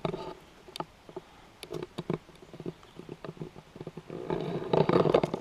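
Footsteps of a hiker walking downhill on a woodland path: irregular soft crunches and clicks. A louder rustling noise builds in the last second.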